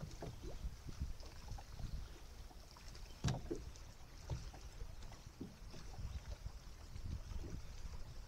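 Quiet on-deck ambience of a bass boat drifting: low rumble of wind and small water slaps against the hull, with one sharp knock about three seconds in.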